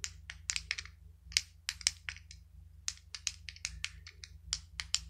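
Clicks from the click buttons on a Fidget Cube, pressed repeatedly in a quick, irregular run of sharp clicks, several a second.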